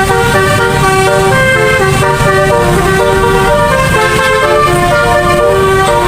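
Bus telolet horn, a multi-tone musical air horn, playing a tune of quickly changing notes over the low rumble of the bus engine.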